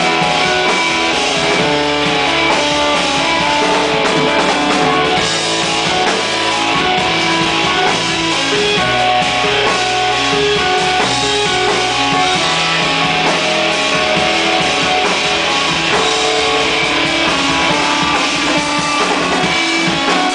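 Live instrumental rock from a duo: electric organ and keyboards played over a drum kit, loud and continuous.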